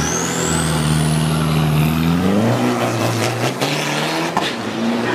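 Isuzu D-Max 3.0-litre turbo-diesel drag pickup held at high revs on the start line, with a high whine climbing in pitch. About two seconds in the engine note rises as it launches, then breaks up as the truck pulls away down the strip.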